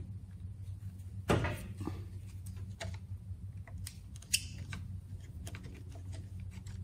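Light clicks and scrapes of a screwdriver working at the fuel pump fittings of a 1984 Johnson 25HP outboard, with a louder scrape about a second in and a sharp click about four seconds in. A low steady hum runs underneath.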